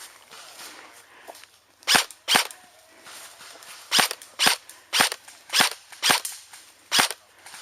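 Airsoft gun firing eight single shots as sharp pops: two in quick succession about two seconds in, then six more at roughly half-second intervals.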